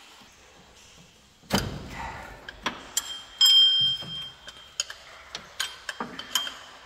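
Hand tools working on a car engine's water pump bolts: irregular metallic clicks and knocks, with a loud ringing clink about halfway through.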